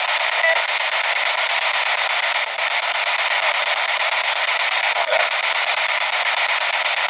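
P-SB7 spirit box sweeping through radio stations: a steady hiss of static from its small speaker, with a sharp click about five seconds in. The uploader captions fragments from the sweep as spirit replies, "Nephilim (fallen angels)" and "We're damned."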